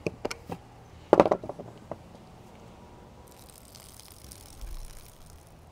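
Swiss Army knife can opener levering through a tin can's lid, a few sharp clicks, with one short louder sound about a second in. From about three seconds in, the can's liquid is poured out and splashes onto the ground for about two seconds.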